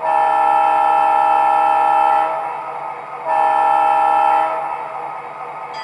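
MTH O-scale SD40-2 model locomotive's onboard sound system sounding its diesel air horn: a long blast of several notes at once, then a shorter second blast about a second later, over the steady idle of the prime mover.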